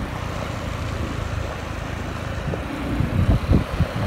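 Motor vehicle on the road, a steady low rumble, with irregular low thumps from about three seconds in.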